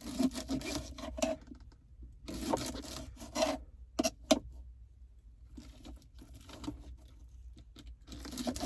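Knife cutting green onions on a cutting board: quick runs of cuts in short bursts, with two sharp knocks on the board about four seconds in.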